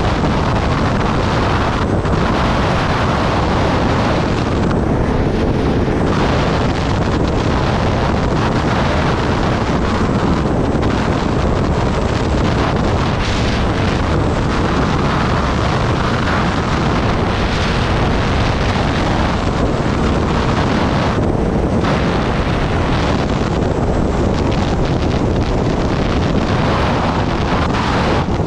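Steady wind rush on the microphone of a sport motorcycle riding at road speed, with the bike's running engine and tyre noise mixed in beneath it.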